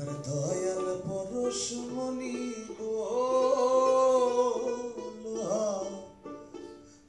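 A man singing a melody into a microphone over instrumental accompaniment, holding one long note through the middle.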